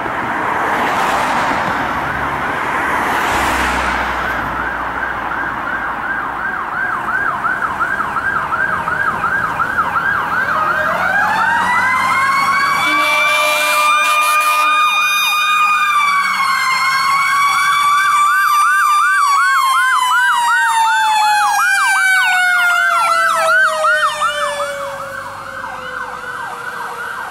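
Fire truck sirens approaching and passing. An electronic siren runs on a fast yelp, and about ten seconds in a mechanical siren winds up, holds its pitch, then winds slowly down toward the end.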